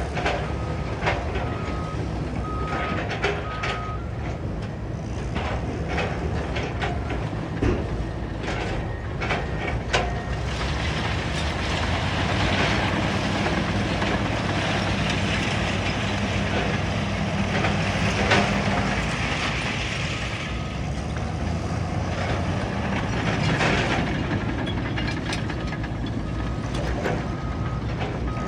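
Caterpillar bulldozer's diesel engine working, with scattered clanks and knocks. Its reversing alarm beeps steadily at the start and again near the end. The engine grows louder under load through the middle.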